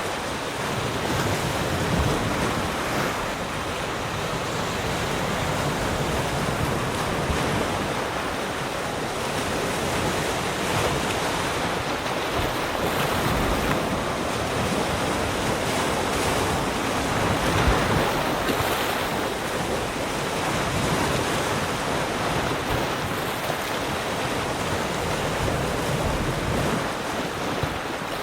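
Sea surf: waves breaking and washing on the shore in a steady, continuous wash that swells and eases every few seconds.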